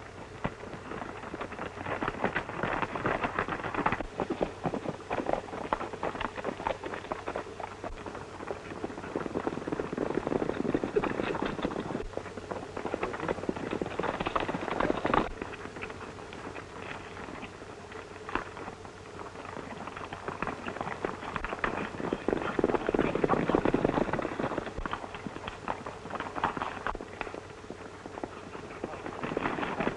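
Several horses galloping, a fast clatter of hoofbeats that swells and fades as the riders pass, over a faint steady hum from an old film soundtrack.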